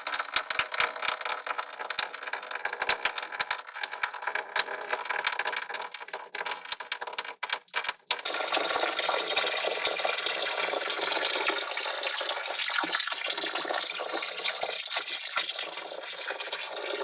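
Water pouring and splashing, at first broken up with many small splashes, then from about eight seconds in a steady run of water.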